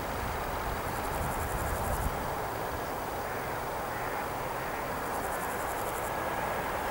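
Insects chirring in the grass in two bouts of fast, even pulses, high-pitched, about a second in and again about five seconds in, over a steady rushing background noise.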